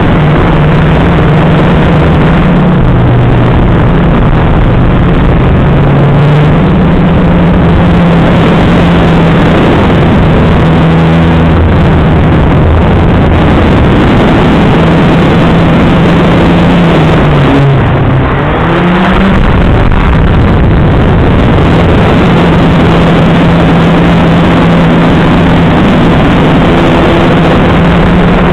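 FPV quadcopter motors and propellers buzzing with a heavy rush of air over the onboard microphone. The pitch shifts with the throttle, dipping and climbing again about two-thirds of the way through.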